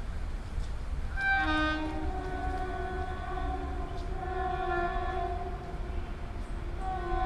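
WAP4 electric locomotive's twin-tone horn sounding a long two-note honk from about a second in, then a fresh blast near the end, over the steady low rumble of the train running through on the track.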